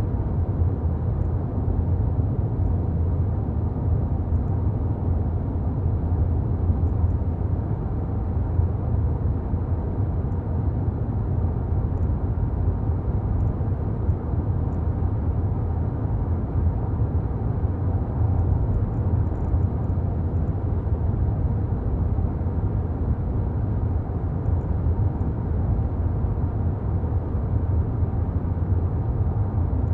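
Car being driven: a steady low rumble of engine and tyre road noise that holds even throughout.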